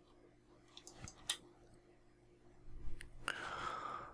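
A few faint, sharp computer mouse clicks: two about a second in and one about three seconds in. A short, faint sound with a slightly falling pitch follows near the end.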